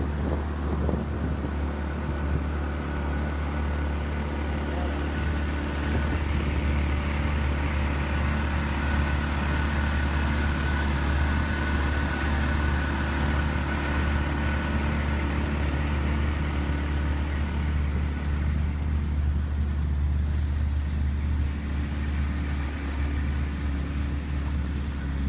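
Motorboat engine running steadily under way, a low, even hum with the rush of water and wind over it.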